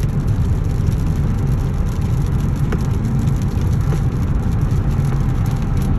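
Car driving along: a steady low rumble of engine and tyre noise.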